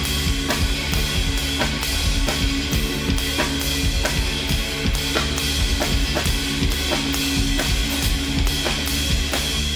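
Live band playing an instrumental passage with the drum kit to the fore: bass drum and snare keep a steady beat of about two hits a second over sustained instrument tones.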